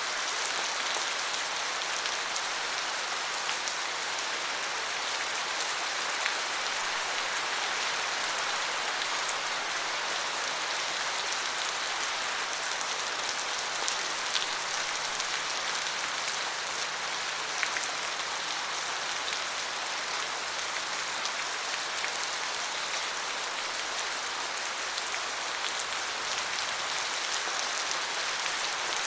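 Steady rain falling, an even hiss with scattered drop ticks, unchanging throughout.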